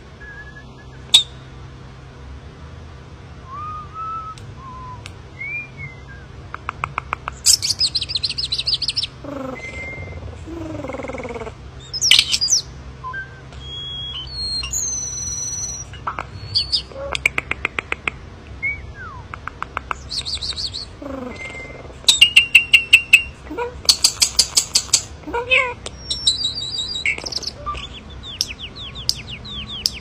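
Common starling singing a varied, rambling song: whistled notes sliding up and down, bursts of rapid dry clicking rattles (the loudest around three quarters of the way through), and a few low falling slurred notes.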